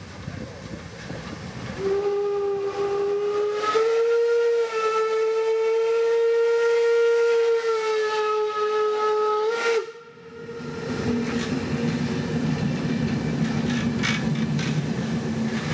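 Steam whistle of the German class 01 Pacific steam locomotive 01 202 sounding one long blast of about eight seconds. It starts about two seconds in, goes up a little in pitch partway, and cuts off sharply. Then the passing train gives a steady low hum and rumble as the coaches roll by.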